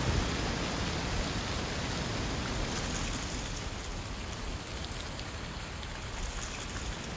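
Wind blowing through autumn trees with dry leaves rustling, a steady rushing noise that eases slightly after the first few seconds.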